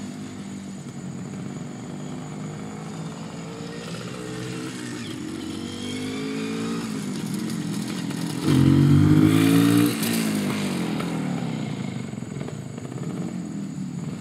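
Motorcycle engine lugging at low rpm in a high gear with the throttle wide open, its note climbing slowly as it approaches. It is loudest as it passes about eight and a half seconds in, then drops in pitch and fades as it moves away.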